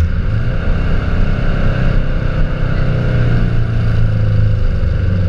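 Exhaust note of a 2003 Subaru Impreza WRX STI's turbocharged flat-four through an HKS Carbon aftermarket exhaust, recorded right at the tailpipe: a loud, steady deep drone whose pitch eases slowly downward over the last few seconds.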